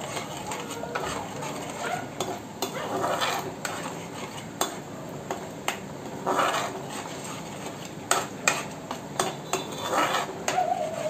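A metal slotted spoon stirring a thick gravy in an aluminium kadai, scraping and clinking against the pan's sides and bottom in repeated irregular strokes.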